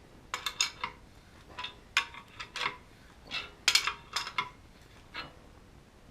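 Short, irregular metal-on-metal clinks and squeaks from a Major Manufacturing Pit Bull metal door latch tool as its screw is turned down to press a latch pocket into a metal door's edge.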